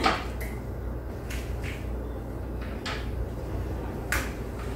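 Eggshell being cracked and handled while an egg yolk is separated from the white: a handful of light clicks and taps, the sharpest about four seconds in, over a faint low hum.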